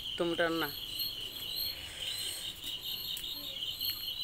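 Crickets chirping steadily in a high, evenly pulsing trill, with a short human vocal sound at the very start.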